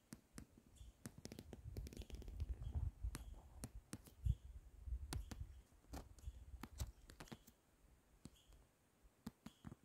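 Faint, scattered clicks and knocks, with a low rumble underneath for a few seconds in the middle.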